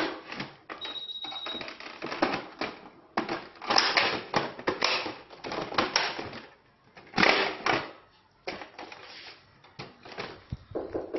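Hard plastic parts of a Carter Sboo baby booster seat clattering, knocking and clicking in irregular bursts as the seat is handled and its backrest is raised into place on a chair.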